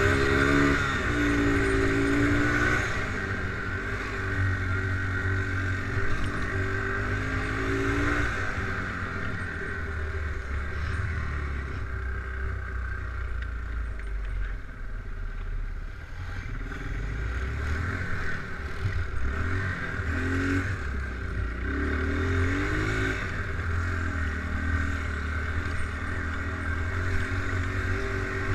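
ATV engine running under load, revving up and easing off again and again as the throttle is worked.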